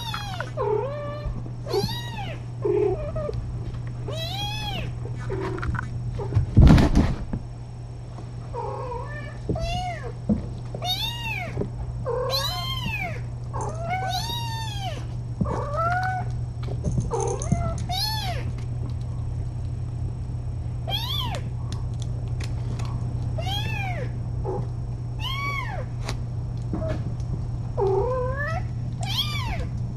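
Kittens meowing over and over, many short high mews that rise and fall, roughly one a second. A loud thump about seven seconds in, over a steady low hum.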